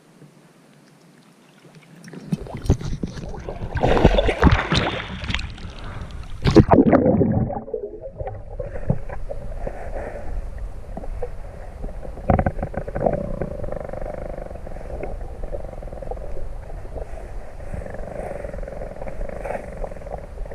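Loud splashing and churning water at the surface for several seconds. Then the sound turns muffled as the camera goes underwater: a steady, dull underwater rumble with a couple of knocks.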